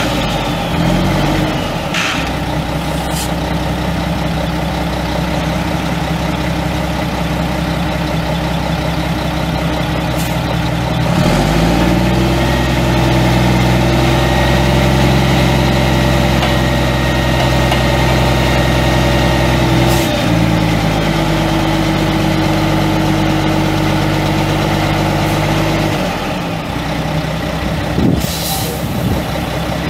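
Mack E7 12-litre inline-six turbo diesel of a dump truck running, its engine speed changing in steps about 11, 20 and 26 seconds in, louder in the middle stretch. A few short clicks and hisses of air break in, the longest near the end.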